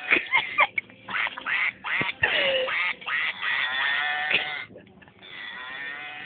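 Quacking animal noises from noise-making toys: several calls in a row, with a short pause near the end.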